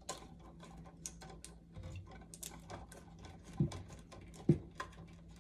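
Quick small clicks and scrapes of hands working electrical wires to join the last wire to the traveler, with two louder knocks about three and a half and four and a half seconds in.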